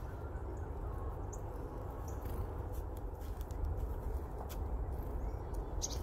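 Black-capped chickadees making scattered short, high chips and a flutter of wings as they come to and leave a hand full of sunflower seeds, over a steady low rumble.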